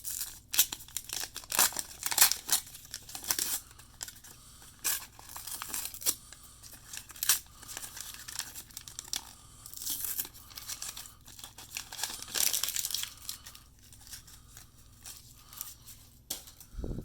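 A 1989 Upper Deck baseball card pack's wrapper being torn open and crinkled by hand: irregular crackling, tearing rustles, loudest about two seconds in and again past the middle. A soft thump just before the end.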